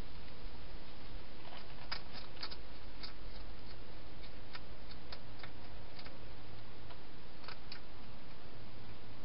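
Wild hedgehog eating inside a plastic feeding box: irregular crisp clicks of chewing, thickest about two seconds in and again briefly near the end, over a steady background hiss.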